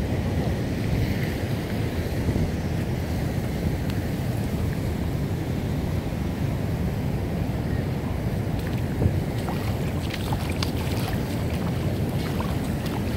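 Steady low rumbling wind buffeting the phone's microphone, with a few faint ticks in the last few seconds.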